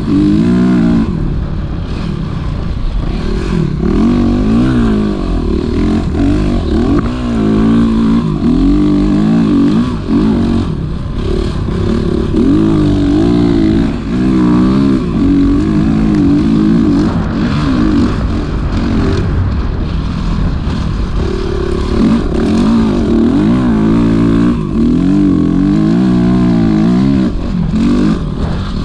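Honda CRF450RX's 450 cc single-cylinder four-stroke engine ridden hard off-road, its pitch climbing and dropping again and again as the throttle is opened and shut and it shifts through the gears.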